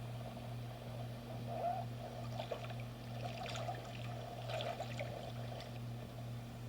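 Water trickling and splashing lightly in short bursts over a steady low hum.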